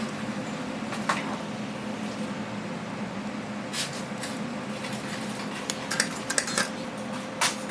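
Small hard tools clicking and tapping sharply a few times, several in quick succession near the end, over a steady electrical hum from bench equipment.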